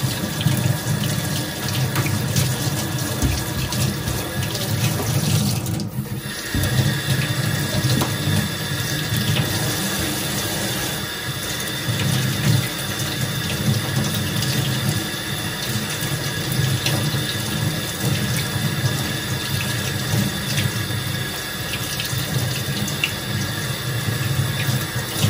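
Kitchen tap running into a sink while potatoes are washed under it, a steady stream with a short break about six seconds in.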